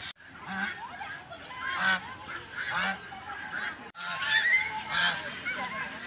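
Domestic geese honking repeatedly, about once a second, with other fowl chattering between the honks.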